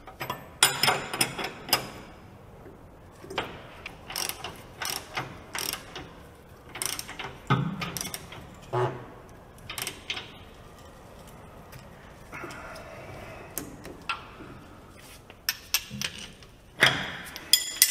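Wrenches working the steel nuts and bolts of a rubber bump stop on a truck's frame rail: a string of irregular metallic clicks and clinks from the wrench and the bolts, some ringing briefly, with a short rasping stretch a little past the middle.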